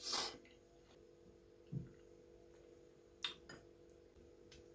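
Cooked fish handled with bare hands on a plate: a brief soft rustle at the start as a piece is pulled apart, then a dull knock and a few faint clicks, over a faint steady hum.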